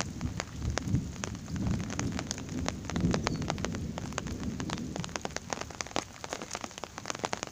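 Thunderstorm rain falling as heavy drops, heard as many separate sharp taps. Under them is a low rumble that dies away about five seconds in.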